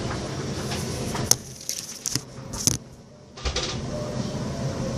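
Steady low hum broken by a few sharp clicks and a knock, with the background dropping away for about two seconds in the middle, like a handheld phone being handled and its microphone covered.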